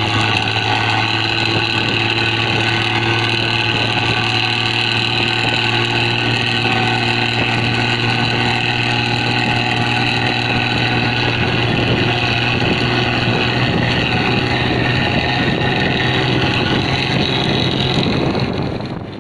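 A vehicle's engine exhaust running at a steady speed with a deep, snoring rumble (knalpot ngorok). The sound fades out near the end.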